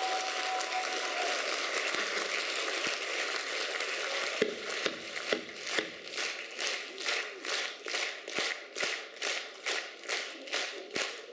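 A concert audience applauding at the end of a song. About four and a half seconds in, the applause turns into rhythmic clapping in unison, about two claps a second.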